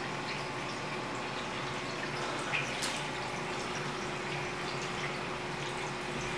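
Steady rushing of rain and running floodwater, with scattered drips and a couple of short ticks about two and a half seconds in.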